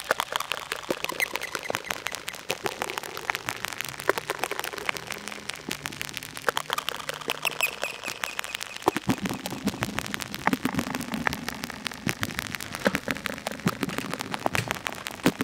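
Make Noise modular synthesizer: XPO oscillator waveshapes run at sub-audio rates so that each wave cycle pings the QPAS filter. This gives a dense, irregular stream of clicks and pops over faint low ringing tones that shift pitch about halfway through.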